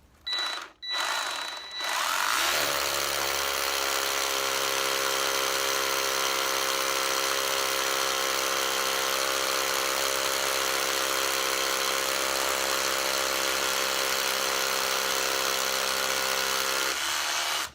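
Small electric motor spinning up and running at a steady speed for about fifteen seconds, then stopping.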